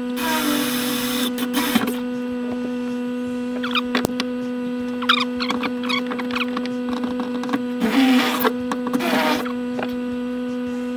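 A cordless drill whirring in two short runs, one at the start and one about eight seconds in, each lasting about a second and a half, over a steady low hum.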